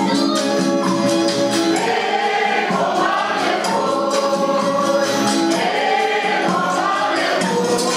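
A group of voices singing a reisado song together over steady hand percussion with a jingling, shaken edge.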